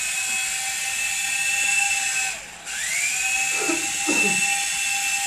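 Toy radio-controlled helicopter's electric motor and rotor whining while it sits on the ground. About two seconds in the motor cuts out briefly, then spins back up with a rising whine and holds steady.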